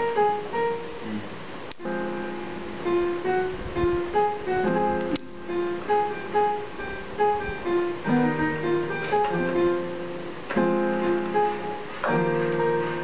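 Electronic keyboard played with a plucked, guitar-like tone: a melody of single notes, with fuller chords from about eight seconds in.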